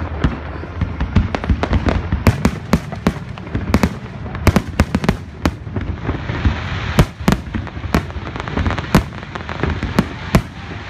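Fireworks display: aerial shells bursting in many sharp, irregular bangs, several a second, with a hiss building up about halfway through as the gold bursts fill the sky.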